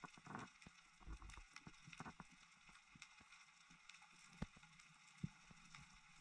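Near silence under water: a faint hiss with scattered sharp clicks, two louder ones about four and five seconds in, and a few soft low thumps in the first two seconds.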